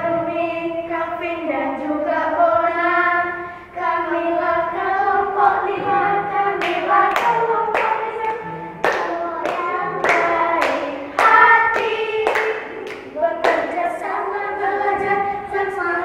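A small group of children singing a song together in unison, joined in the middle by a run of sharp hand claps, roughly two a second, that stop before the end.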